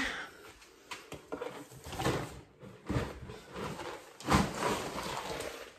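Dry goat grain rattling and hissing into a feed bucket as it is scooped and poured, in several short pours with knocks of handling, the longest about four seconds in.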